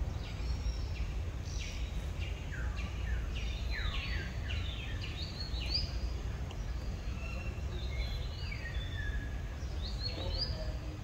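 Birds calling: many short chirps sweeping sharply down in pitch, overlapping and repeated, over a steady low rumble.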